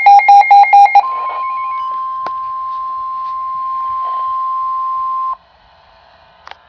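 Emergency alert broadcast tones: a rapid string of short beeps, then a single steady alert tone near 1 kHz, typical of the NOAA Weather Radio warning alarm tone, held for about four seconds before it cuts off.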